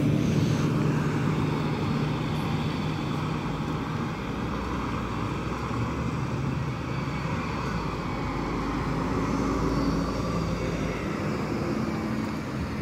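Road traffic: a MAN city bus engine running as it pulls away, its hum fading over the first few seconds, then cars driving past with a low rumble.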